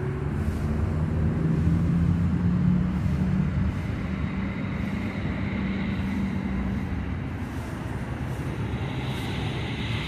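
Steady low hum of a running motor vehicle engine, swelling louder about two seconds in and then settling.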